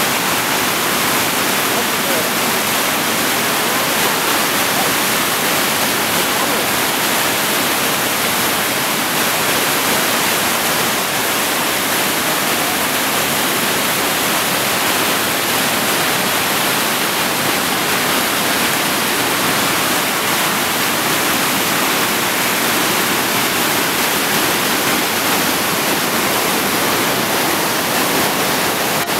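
The Yarra River in flood, swollen after record rains, rushing through brown rapids over rocks. It makes a loud, steady roar of white water.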